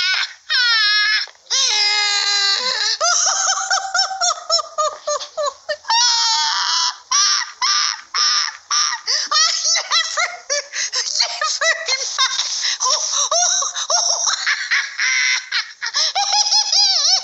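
A cartoon owl's voice laughing hysterically: a high-pitched cackle broken into many rapid short bursts, with a few long falling squeals in the first couple of seconds.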